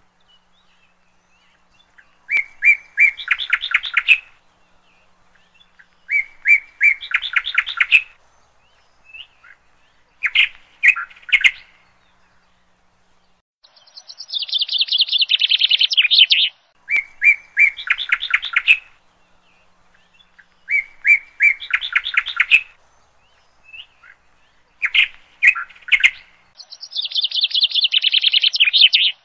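Bird song: short phrases of chirps and quick trills repeating about every four seconds with brief pauses, twice running into a longer falling trill.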